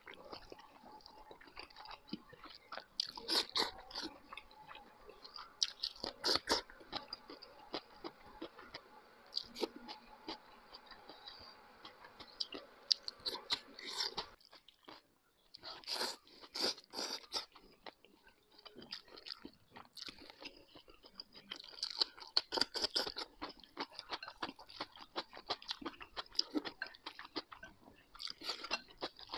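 A person eating wide noodles with chopsticks close to the microphone, chewing and slurping in quick irregular smacks, with a short lull about halfway through.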